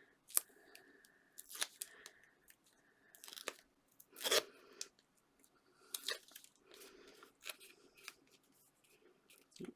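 Card and paper being handled: scattered crackles and rustles, irregular and brief, the loudest about four seconds in.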